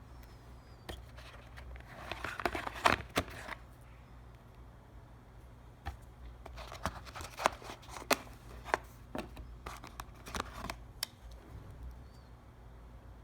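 Packaging being handled during an unboxing: bursts of sharp clicks, taps and brief rustles, in two clusters, one about two seconds in and a longer one from about six to eleven seconds in, over a steady low hum.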